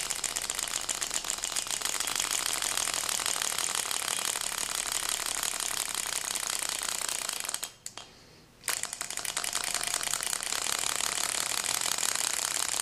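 Six-cylinder rotary Ringbom Stirling engine running with a rapid, steady clicking from the displacers being driven back and forth as the pistons work against them. Past the middle the clicking stops for about a second, then resumes.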